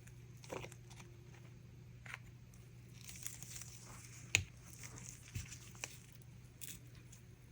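Light clicks and taps from handling resin cups and containers while mixing colour, with a brief rustle and one sharper click a little past halfway, over a low steady hum.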